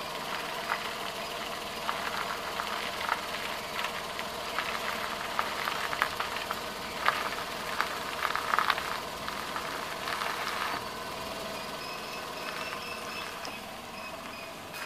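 Suzuki Every van's three-cylinder engine idling steadily, with irregular clicks and knocks through the middle few seconds.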